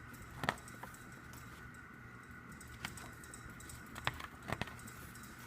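A few light, sharp clicks and taps from a CD album's paper and cardboard parts being handled, over a steady faint hum.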